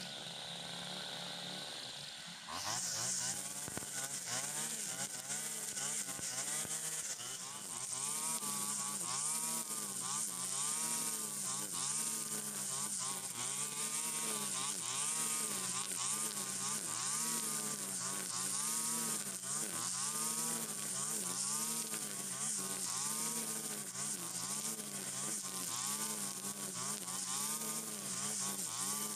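Stihl FS 120 two-stroke brush cutter running at cutting speed through thick cogon grass. From about two and a half seconds in, its pitch rises and falls about once a second, dipping as the cutting head bites into the dense grass on each swing and picking up again on the return.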